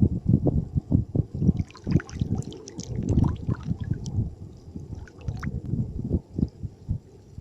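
Water splashing and sloshing over a run of irregular low thumps and rumble; the splashing is busiest from about one and a half seconds in to about four seconds.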